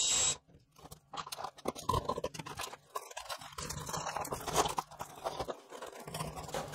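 A cordless drill runs for a moment, then fingers push into a small drilled hole in a hollow-core door, crunching and scraping the thin cardboard honeycomb inside as it compacts.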